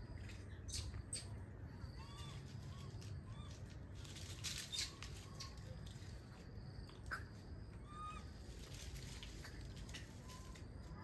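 Short chirping bird calls repeating every second or so over a low outdoor rumble, with a few rustles and snaps of dry leaves and twigs, the loudest a little before halfway.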